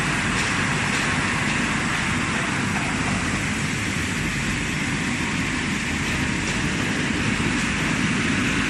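Automatic plastic crate washing and drying machine running: a steady noise with a low rumble underneath, from its water sprays, pumps and drying blowers, as a crate rides out on the conveyor.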